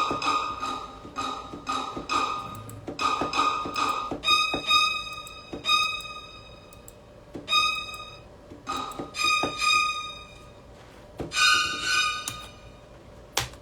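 A sparse melody of short string-like notes from a software instrument in a beat-making program, each note starting sharply and fading, with gaps between phrases.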